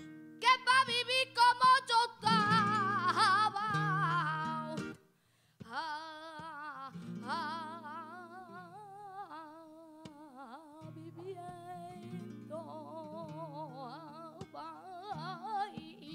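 Flamenco cante: a woman sings long, wavering melismatic lines over flamenco guitar accompaniment. The first phrase is loud, with sharp strummed chords. After a brief break about five seconds in, the singing resumes more softly over the guitar.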